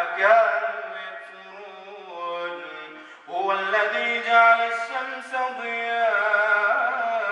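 A male imam reciting the Quran in melodic chant: long held notes ornamented with bends in pitch, and a short pause for breath about three seconds in before the next phrase.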